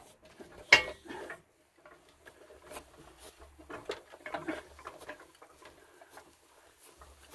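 Homemade scrap-metal portable crane being pushed along by hand: a sharp knock about a second in, then faint scattered clicks and rattles from its frame, wheels and loose hardware hanging below the boom. Picked up from a camera mounted on the boom.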